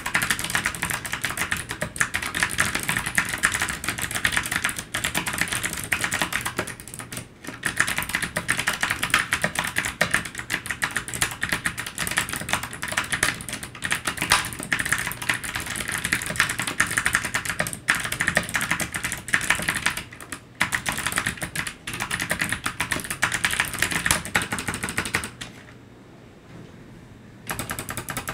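Fast, continuous typing on an ABKO Hacker K8300 gaming keyboard with clicky Kailh optical switches, a dense clatter of key clicks. There are brief breaks about 7 and 20 seconds in, and a pause of about two seconds near the end before the typing resumes.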